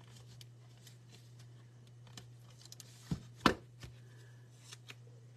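Hands working small paper pieces and a plastic tape-runner adhesive on a craft mat: light clicks and rustles, then two sharp knocks about three seconds in, the second the loudest. A steady low hum runs underneath.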